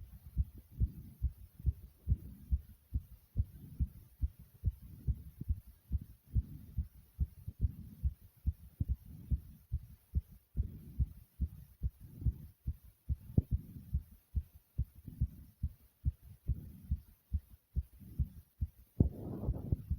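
Fast human heartbeat, a quick regular run of short, dull, low thumps, often in close lub-dub pairs, racing after exercise. Near the end a louder breath rises over the beats.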